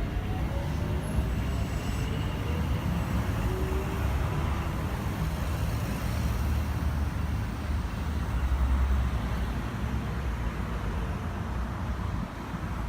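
Mo 780 class tram running on street track with a steady low rumble. A faint electric motor whine rises in pitch during the first couple of seconds as it gathers speed.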